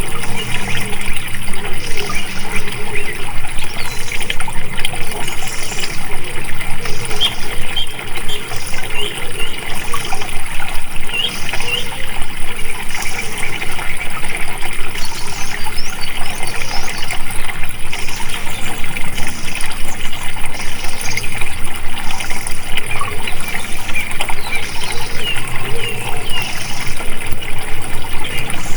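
Flowing water running steadily and loudly, with a constant choppy splashing. Faint short high chirps are scattered through it.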